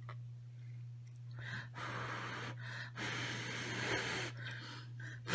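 A person huffing several breathy puffs of air, the longest about a second, to cool a hot bite of food. A steady low electrical hum runs underneath.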